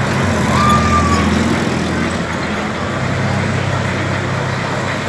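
Road traffic: a large truck's diesel engine running at low speed with passing cars, a steady low hum under a noisy haze. A short steady high tone sounds for about half a second, shortly after the start.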